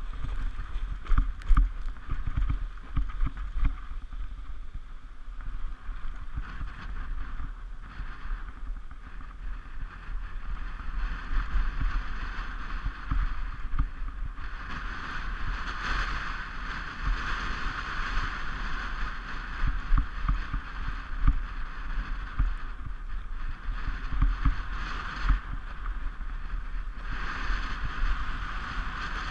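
Sled runners hissing and scraping over the packed snow of a toboggan run at speed, with many small knocks and thumps from bumps in the track; the hiss swells and eases as the sled runs on.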